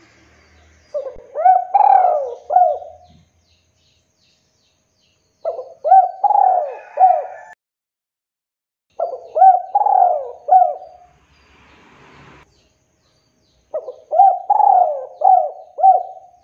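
Male spotted dove (tekukur) cooing: four phrases of several quick coos each, a couple of seconds apart.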